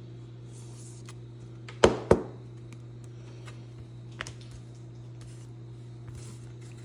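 Pokémon trading cards being handled: cards sliding against each other, with two sharp taps about two seconds in and a lighter tick later, over a steady low hum.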